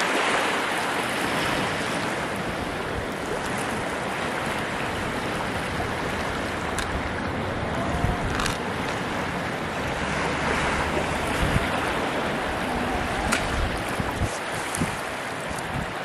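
Surf washing onto the beach, swelling twice, with wind buffeting the microphone and a couple of sharp clicks.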